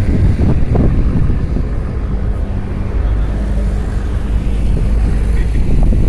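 Steady low rumble of passenger ferry engines on the water, mixed with wind buffeting the microphone; a faint engine hum rises out of it about two seconds in and fades a couple of seconds later.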